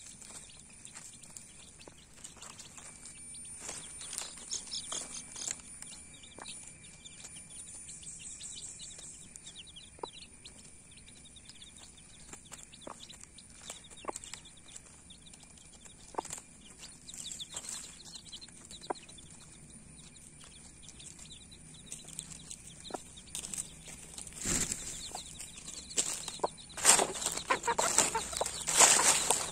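Newborn chicks peeping steadily and a mother hen pecking at food on leaf-littered ground, with scattered light taps. Near the end it gets louder, with clucking and scuffling.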